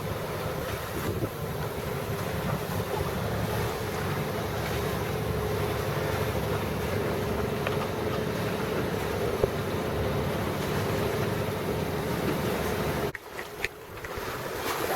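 A sailboat's engine running steadily while motor-sailing, with wind buffeting the microphone and water noise. About thirteen seconds in, the engine sound drops away abruptly.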